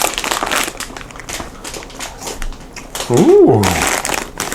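Snack wrapper crinkling and small crunching clicks while a snack is opened and eaten, then a drawn-out 'ooh' of approval that rises and falls in pitch about three seconds in.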